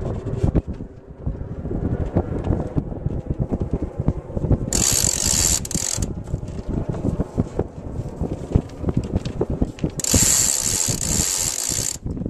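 Sailboat winch ratcheting with fast, dense clicks as the jib halyard is hauled in and the jib goes up. Twice a high rushing hiss, about a second long near the middle and about two seconds near the end.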